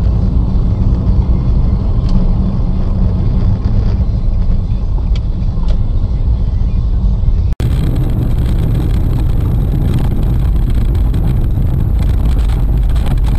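Steady low rumble of a car driving, engine and road noise picked up by a dashboard camera. There is an abrupt cut about seven and a half seconds in, and similar driving noise follows.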